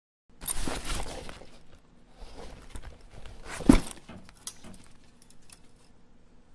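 Rustling and small clattering noises that start suddenly after silence, with one sharp, loud knock about three and a half seconds in.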